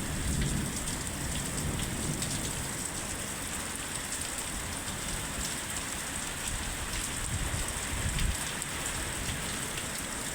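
Steady downpour of rain falling on surfaces, an even hiss with scattered drop ticks. A brief low rumble swells about half a second in and again around eight seconds in.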